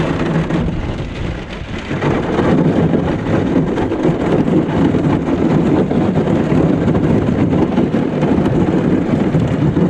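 Thin lake ice, about half an inch thick, crunching and cracking against a boat's hull as the boat is driven forward into it under its trolling motor. A dense, continuous crackle that grows louder about two seconds in and then holds.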